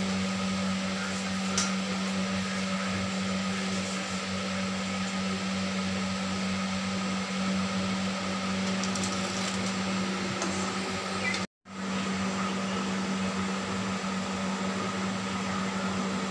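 Potato sticks deep-frying in a kadhai of oil, a steady sizzle, under a constant low motor hum. The sound cuts out for a moment about two-thirds of the way through.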